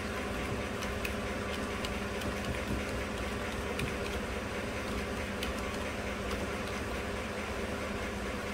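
A 2015 GMC Sierra's direct-injection 5.3 V8 idling steadily, a low even hum with faint scattered ticks. The engine is running rich, which the mechanic puts down to injectors delivering more fuel than they should.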